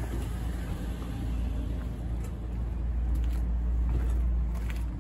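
Low, steady rumble of a motor vehicle's engine, growing a little louder about three seconds in.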